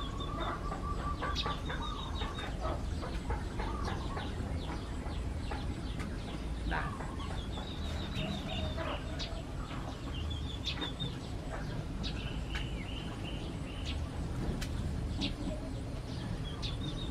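Birds calling: short runs of quick high chirps repeated every couple of seconds, over a steady low rumble.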